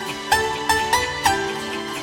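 Background music: a melody of pitched notes, about four a second, over sustained lower chords.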